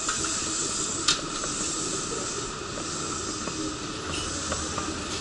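Electric trains at a station platform: a steady hiss from a train standing with its doors open, with one sharp click about a second in and a low rumble growing near the end.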